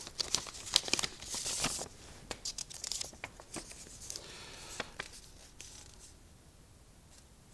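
Paper rustling and crinkling with scattered small clicks, typical of a question slip being drawn and unfolded. It is busiest early on and dies away after about five seconds.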